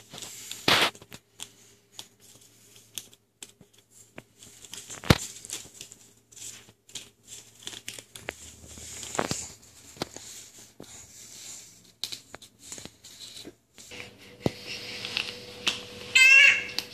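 Scattered taps, knocks and rustling as a baby crawls over a foam play mat among blankets and small toys. Near the end, a short high-pitched, wavering cry from the baby.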